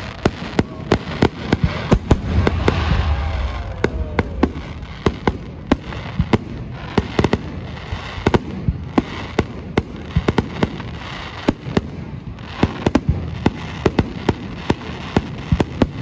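A fireworks display going off: an irregular string of sharp bangs and cracks, several a second, over a continuous rumble that swells about two to four seconds in.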